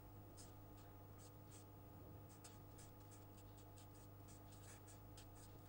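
Faint strokes of a felt-tip marker writing on paper, a quick run of short scratches, over a steady low electrical hum.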